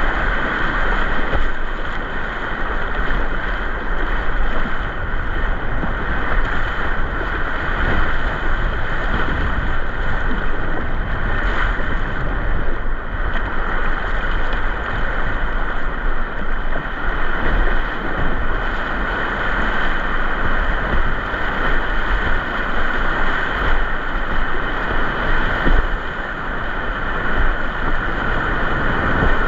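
Loud, steady rush of whitewater tumbling through a steep creek's rapids.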